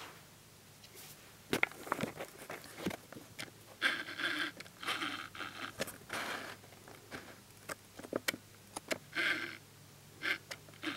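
Quiet room with scattered small clicks and soft rustling handling noises, with a few brief breathy noise patches around the middle and again near the end.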